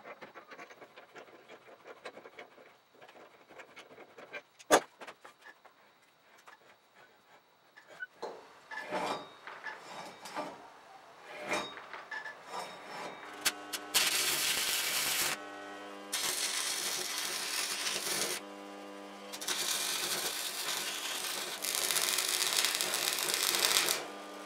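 Hand tools working on steel: a spanner tightening the axle bolt of a nail-studded log roller, with scattered clicks, scrapes and one sharp metal click. From about halfway, an arc welder crackles and spits in four long bursts with short breaks, over the welding set's steady mains hum.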